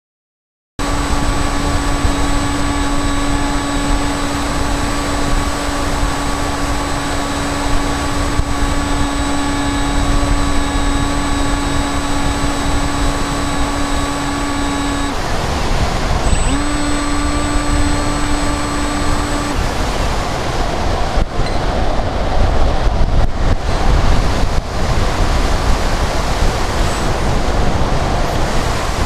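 Onboard sound of a Bixler RC foam plane in flight: a steady whine from its electric pusher motor over loud wind rush. The motor cuts out about halfway through, runs again for about three seconds, then stops, leaving only wind rumble for the last third.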